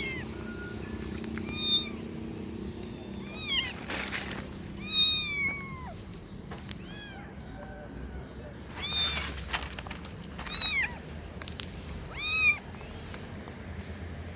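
Kitten meowing repeatedly: about seven short, high-pitched mews, each rising and falling, a second or two apart. A couple of brief noisy bursts come between the mews.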